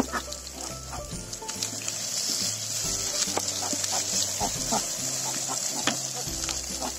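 Sliced onions and green chillies frying in oil in a wide metal pan, with a steady sizzle, while a wooden spoon stirs them and clicks and scrapes against the pan. This is the start of sautéing the onions soft.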